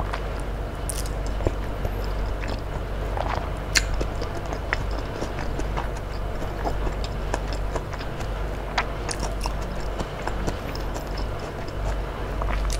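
Close-miked chewing of a mouthful of tahu tek (fried tofu and bean sprouts in peanut sauce): scattered soft mouth clicks over a low steady hum.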